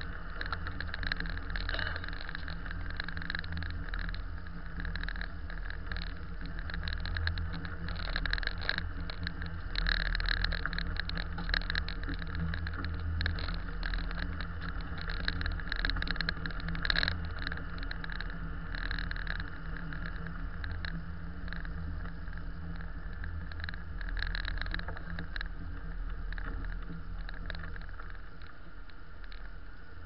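Road noise heard from inside a vehicle driving slowly on snow-packed streets: a steady low engine and cabin drone, with an irregular crackly hiss from the tyres on packed snow. It gets a little quieter near the end.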